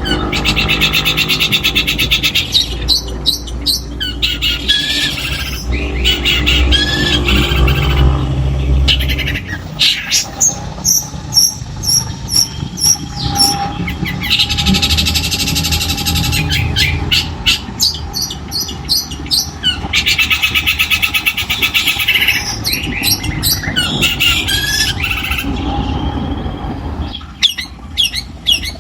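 Long-tailed shrike (cendet) singing a loud, varied song of rapid rattling trills and short chattering and whistled notes, with pauses between phrases and mimicked phrases of other birds mixed in. A low rumble runs beneath much of it.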